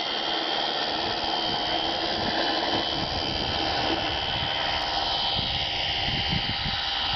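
Electric MIG 600 motor and propeller of a radio-controlled model Cessna 95 in flight, running with a steady high whine.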